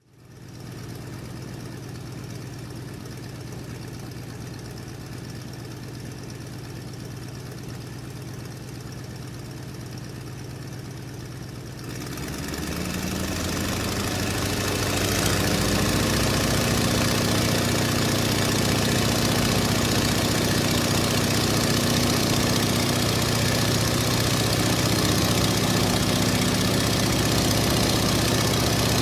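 Stearman biplane's radial engine heard from the cockpit, idling steadily. About twelve seconds in the throttle opens and the engine climbs over a few seconds to full takeoff power, then runs loud and steady.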